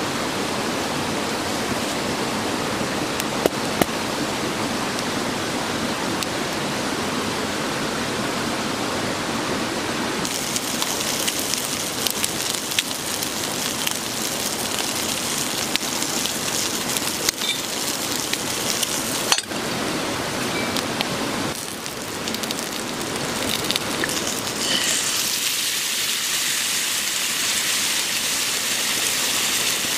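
A wood campfire crackling, with a few sharp pops. From about ten seconds in, food sizzles steadily in a skillet set over the flames, and the hiss grows brighter.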